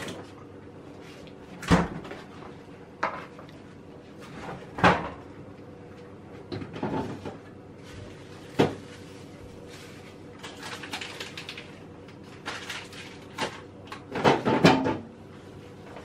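Kitchen handling clatter: a series of sharp knocks as containers are set down and doors are opened and shut. A busier spell of rattling and knocking comes near the end.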